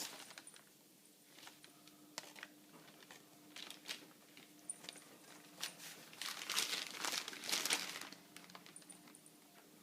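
A newspaper rustling and crinkling in scattered bursts, busiest from about six to eight seconds in.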